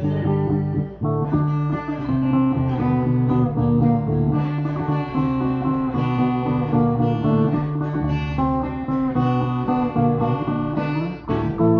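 Stratocaster-style electric guitar being played: a run of picked notes and chords over held low notes, with short breaks about a second in and near the end.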